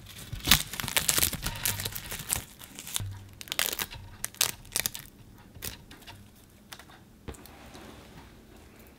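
A crisp sheet of nori seaweed crinkling and crackling as fingers bend and tear it. The crackles come thick and fast for the first five seconds, then thin out to a few scattered ones.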